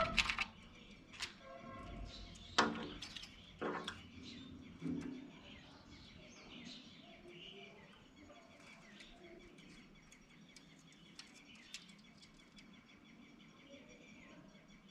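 Birds chirping faintly and intermittently, with a few louder, lower-pitched sounds in the first five seconds.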